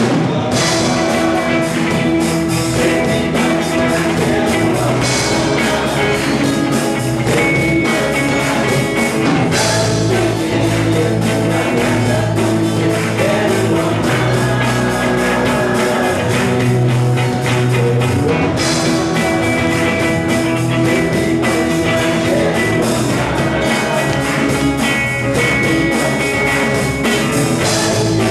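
Church worship band playing a song with guitar and drum kit, steady and loud throughout.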